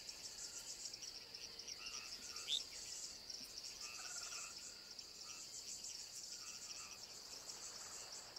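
Faint, steady chorus of insects, a high, finely pulsing buzz, with a few brief chirps over it, one a quick rising chirp about two and a half seconds in.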